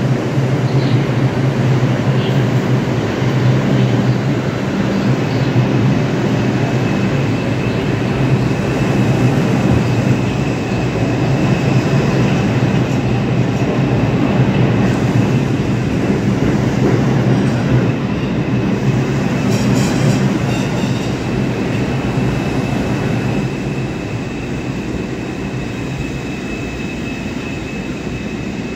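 New York City subway 2 train of R142 cars pulling out of the station: a low electrical hum from the standing train gives way to rumbling and rattling wheels on the rails as it accelerates. A steady high whine sets in about twelve seconds in, and the sound fades near the end as the train moves off down the tunnel.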